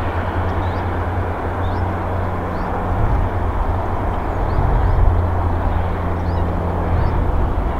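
Steady low outdoor rumble with a faint hum, and several short, faint high chirps of small birds scattered through it.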